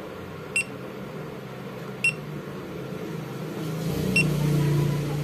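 GoPro Hero+ action camera giving three short, high electronic beeps a second or two apart as its buttons and touchscreen are pressed to start recording, over a low steady hum that swells near the end.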